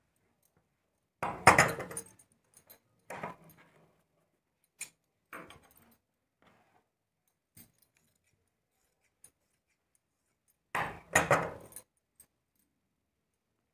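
Tailor's shears and cut cloth being handled on a wooden table: scattered clinks and rustles, the loudest bursts about a second and a half in and near the end.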